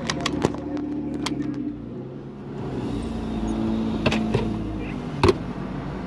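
Car engine idling, a steady low hum heard from inside the cabin, with a deeper rumble swelling about halfway through and a few sharp clicks and knocks, the loudest near the end.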